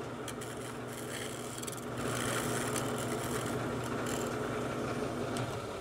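Wood lathe running steadily, spinning a homemade Formica sanding disc: a motor hum with a hiss over it, a little louder from about two seconds in.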